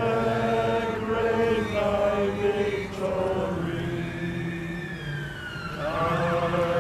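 A crowd singing a hymn together in long held notes. An emergency-vehicle siren starts wailing near the end.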